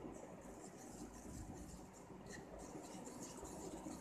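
Faint scraping and light tapping of a small plastic measuring spoon stirring a runny aloe vera gel, honey and lemon mixture in a ceramic bowl, over a low steady background rumble.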